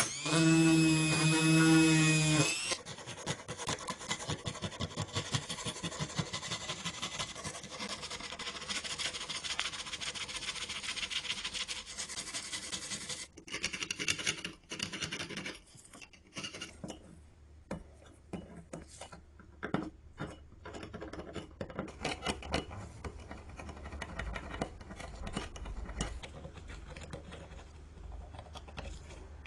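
Rapid rasping strokes of a hand tool filing or scraping, dense and continuous at first, then sparser and fainter with scattered scrapes after about halfway.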